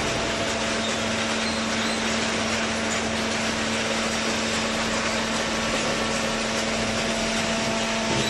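Hydraulic paper baling press running: a steady machine hum over a loud, even noisy rush, with the hum starting right at the outset.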